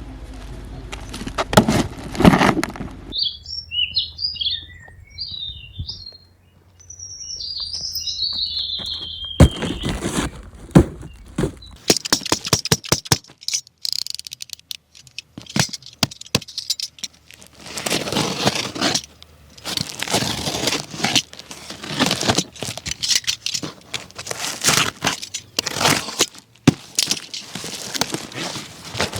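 Rapid clicks, knocks and rustling from a die-cast toy dump truck and its packaging being handled, with a short run of high chirps a few seconds in.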